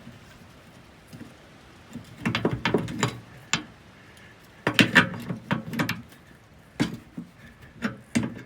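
Metal tools clinking and knocking against the fittings as a leaking propane valve is worked loose under an RV, in irregular bunches of sharp clicks with pauses between.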